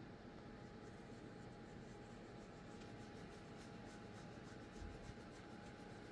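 Near silence: quiet room tone with a faint steady hum, light scratchy rustling, and a soft low bump a little before the end.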